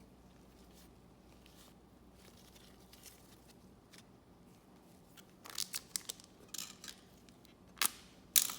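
Foil trading-card pack wrapper crinkling and being torn open. A few quick crinkly bursts start about halfway through, and the sharpest, loudest tears come near the end.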